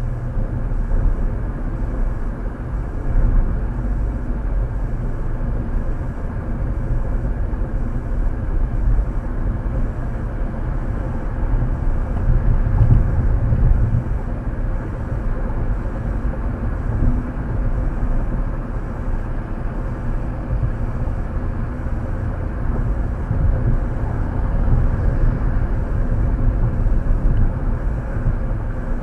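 Steady low rumble of tyre and engine noise inside a car cabin cruising on a freeway at about 55 to 60 mph.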